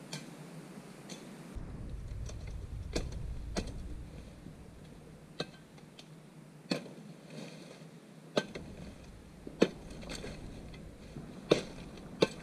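Footsteps through dry forest leaf litter and undergrowth, with sharp twig snaps or cracks every one to two seconds, the loudest near the end. A low wind rumble on the microphone comes and goes underneath.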